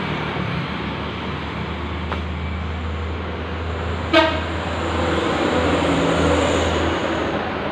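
Suzuki Satria FU 150's single-cylinder four-stroke engine idling steadily and smoothly after an engine overhaul. A very short horn-like toot sounds once about four seconds in.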